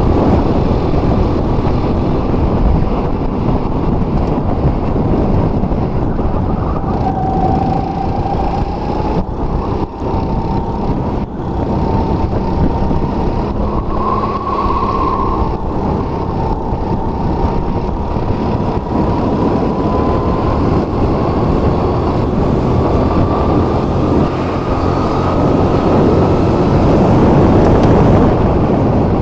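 Go-kart heard from onboard while racing at speed: a steady, loud motor-and-rush noise, with a faint whine that drifts slowly up and down in pitch as the kart goes through the corners.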